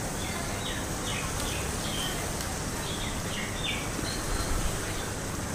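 Chicken and spice masala sizzling steadily as it fries in oil in a cooking pot, with a wooden spatula stirring it about halfway through. Small birds chirp several times in the background.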